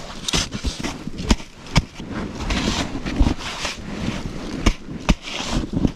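Rustling and crunching as a person shifts about on packed snow in a snow cave, broken by several sharp knocks.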